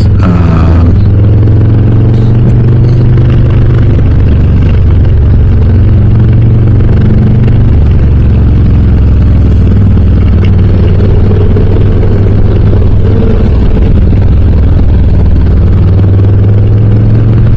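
2023 Harley-Davidson Low Rider S's Milwaukee-Eight 117 V-twin running under way through Cobra RPT slip-on mufflers, loud and low. Its pitch drops about a second in and shifts up and down a few more times as the throttle changes.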